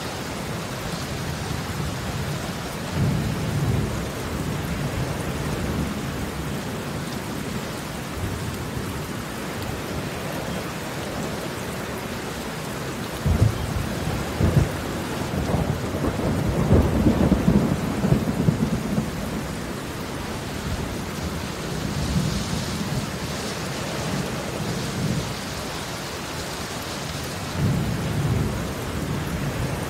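Heavy rain falling steadily on wet concrete pavement, drops splashing. Low rumbles come and go over it, loudest around the middle.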